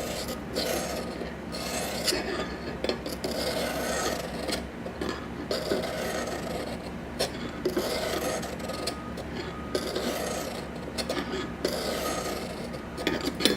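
Super-fine 1200-grit Eze-Lap diamond stone drawn across a steel knife edge in a guided angle sharpener, a gritty rasping stroke repeated about once a second.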